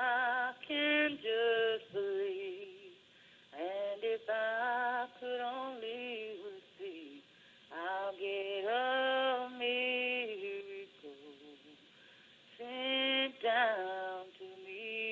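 A solo voice singing a song, holding long notes with vibrato in four phrases separated by short pauses.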